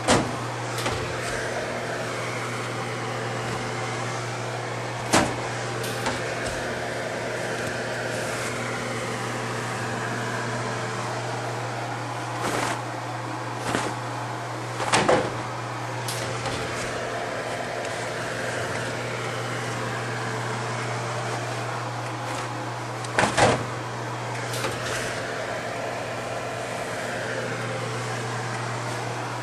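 Steady hum of a running laundry machine, with several sharp knocks through it.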